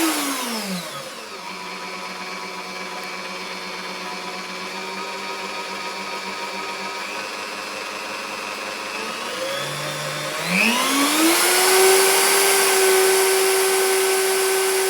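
Bosch PBD 40 bench drill's motor running, in first gear. Its whine falls in pitch within the first second or so as the speed is turned down, runs steadily at low speed, then rises again about ten and a half seconds in back to high speed.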